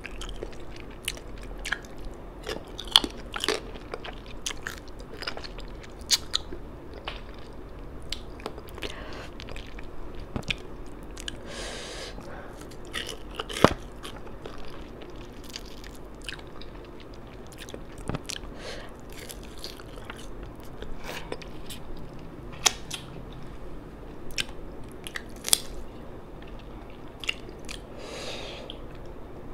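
Close-miked chewing and mouth sounds of someone eating fish and rice with her fingers: wet smacks and many scattered sharp clicks, with a sharper crunch about halfway through.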